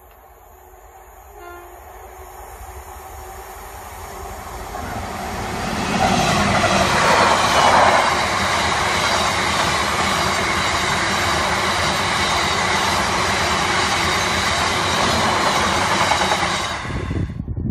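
Freight train approaching and passing at speed: a brief horn note about a second and a half in, then a rumble that grows steadily louder as it nears. The rumble becomes a loud, steady run of wheel noise and rail clatter as the open box wagons pass close by, and cuts off abruptly near the end.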